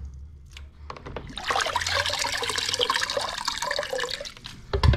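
Water running and splashing into a plastic basin as an Alvey side-cast fishing reel is rinsed of beach sand. The running water starts after a quieter first second, and there is a thump near the end.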